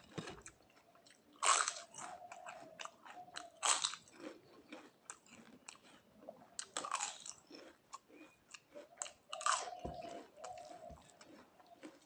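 Close-miked eating: about four loud crunching bites of crisp food, with chewing and small mouth clicks in between.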